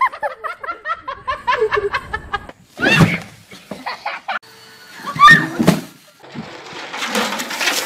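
A person laughing in a quick run of short bursts, then two short, loud cries about three and five seconds in, the second the loudest; a steady noisy hiss fills the last second or so.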